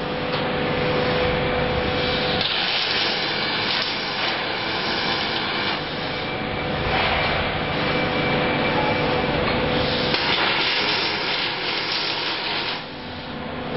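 Robotic MIG welding: the wire-fed arcs of welding robots crackling and hissing in several long bursts, dropping off near the end, with a faint steady machine tone underneath at the start.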